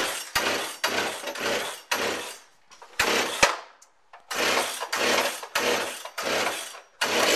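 Chainsaw being revved again and again in short bursts, about two a second, with a brief pause near the middle.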